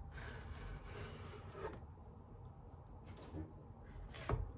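Kitchen knife slicing a zucchini lengthwise into thin slices on a wooden cutting board: faint soft cutting and rubbing, with one sharp knock about four seconds in.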